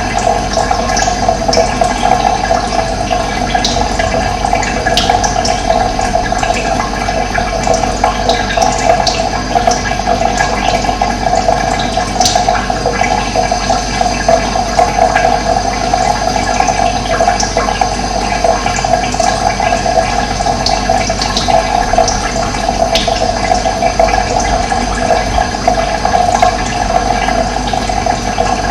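Running water rushing steadily, with brief, high bird chirps scattered through it.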